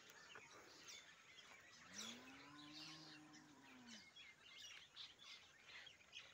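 Faint outdoor ambience of small birds chirping, with a cow lowing once in the distance, a single moo of about two seconds that rises and falls in pitch about two seconds in.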